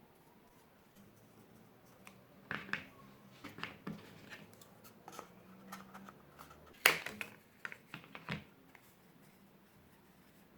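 Small crafting handling sounds: a scattered run of clicks and rustles of cardboard being worked by hand, the sharpest about seven seconds in.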